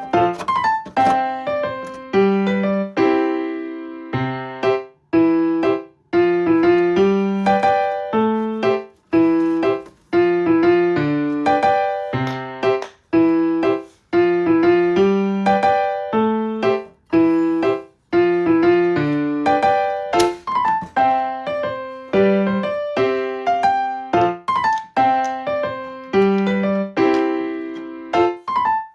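Background piano music: a steady run of struck notes, each one fading before the next.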